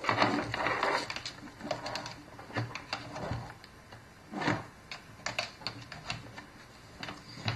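Rustling and scattered plastic clicks from handling the gaming keyboard and its USB cables while plugging it in, with a louder clatter about halfway through.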